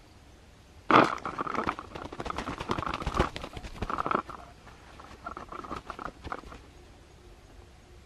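A pigeon caught in a snare trap beating its wings and thrashing on sandy ground: a sudden loud burst about a second in, then a rapid flurry of flaps and scuffling in waves that dies away at about six and a half seconds.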